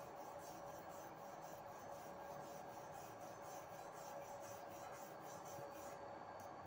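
Steel-bristle hand wire brush scrubbed back and forth over a stick-weld bead on steel plate, cleaning slag off the weld: quick scraping strokes, about three to four a second, that stop near the end.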